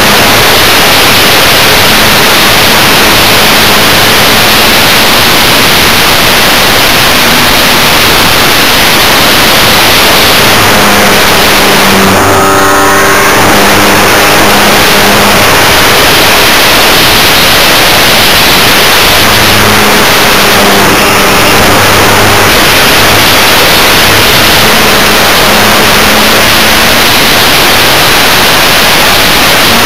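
Loud, distorted rush of wind and propeller noise picked up by a camera riding on a radio-controlled Multiplex EasyCub model airplane in flight. The motor's hum comes through faintly now and then under the steady hiss.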